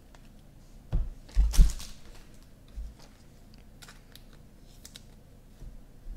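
Trading cards handled and a stack of them set down on the table: a few knocks with dull thuds, the loudest about a second and a half in, then another soft knock, then light clicks and rustles.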